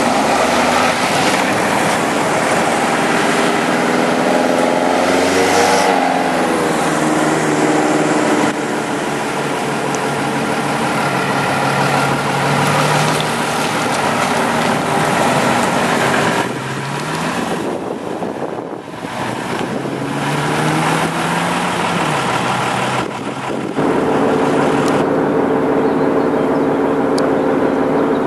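Unimog trucks' diesel engines passing one after another, the pitch rising and falling as they pull away and change gear. Near the end a steadier engine drone.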